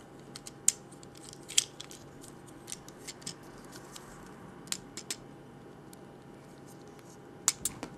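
Small plastic clicks and taps as the cannon of a Transformers Deluxe Ratchet action figure is worked into the figure's hand, scattered irregularly, with a few sharper clicks about a second and a half in, around five seconds in, and near the end.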